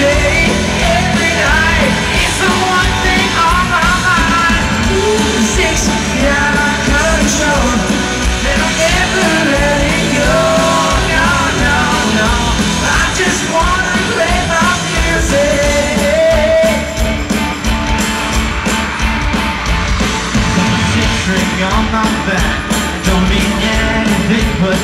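A pop-rock band playing live through a large PA, with drums, electric guitars and a male lead vocal, and yelling from the crowd mixed in.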